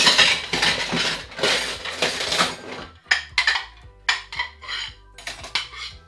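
Crockery and cutlery clattering as dishes are handled: a dense rattling clatter for about three seconds, then a string of short separate clinks.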